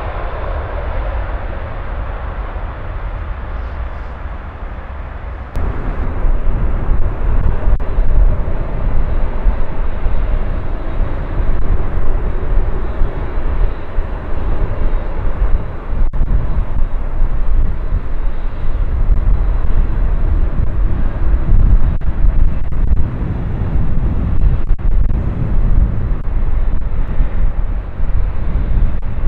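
Jet airliner engine noise heard outdoors: a landing twin-engine widebody's engine noise dying away. About five seconds in, a cut brings in the louder, steady rumble of a departing Airbus A380's four engines on the runway, with gusty wind buffeting the microphone.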